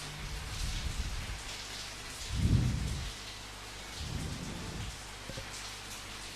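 Steady rain with low rumbles of thunder. The loudest rumble swells about two and a half seconds in, and a weaker one comes about four seconds in.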